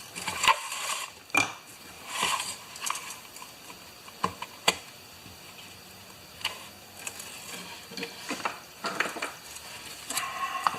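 Scattered clicks, knocks and rustling as a Honda HR214 lawn mower's recoil starter is handled and worked apart, with two sharp clicks close together about four and a half seconds in.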